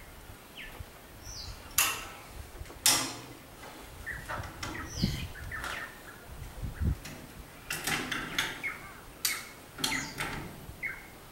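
Steel rigging chain clinking and clanking as it is handled and reset overhead: a string of sharp metallic knocks, bunched in two spells, with a few duller thuds between them. Faint bird chirps are in the background.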